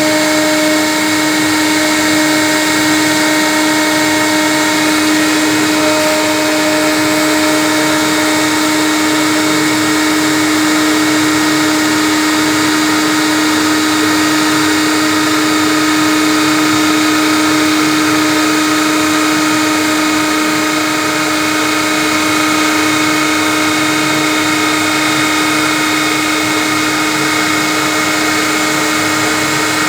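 CNC router spindle running while it cuts acrylic sheet: a steady, unchanging whine over a hiss of cutting noise.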